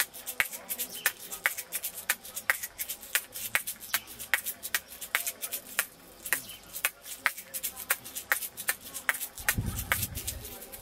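Sharp clicks and ticks in an irregular series, about three or four a second, with a brief low rumble near the end.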